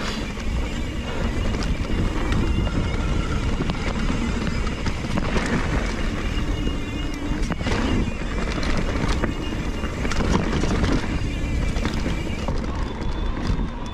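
Mountain bike descending a dirt trail: wind rushing over the on-board camera microphone and tyres rolling on dirt, with the bike rattling and knocking over bumps. A faint high whine comes and goes.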